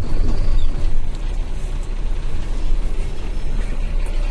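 Truck running along the road, heard from inside the cab: a steady low engine rumble mixed with road noise.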